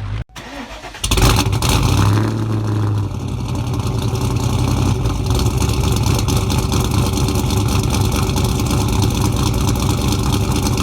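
Jeep Cherokee XJ engine running under load while driving, with rough road and wind noise; the sound starts abruptly about a second in after a brief drop-out.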